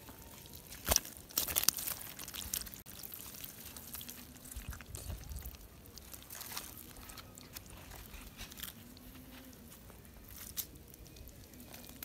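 Hands squelching and rustling in wet mud while pulling out and gripping a catfish, with several sharp clicks and snaps about one to three seconds in.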